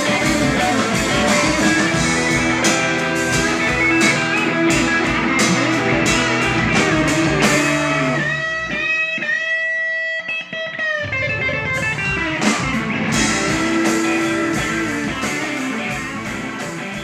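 Blues-rock music led by electric guitar with drums. About eight seconds in, the drums drop out for a few seconds of held guitar notes, then the full band comes back in.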